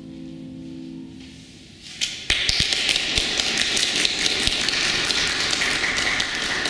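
The last sustained notes of a song fade away, then about two seconds in an audience breaks into steady applause.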